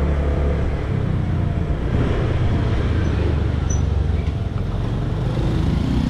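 Motor scooter riding slowly along a street: its small engine running steadily under a low rumble of wind and road noise.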